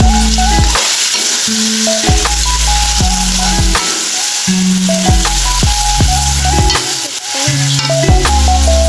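Chicken sizzling as it is sautéed in a pan, a steady frying hiss, with background music of repeating notes and bass playing over it.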